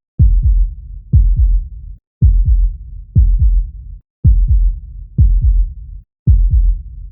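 Human heartbeat, a deep lub-dub thump about once a second in a steady rhythm, each beat fading into a low rumble before the next.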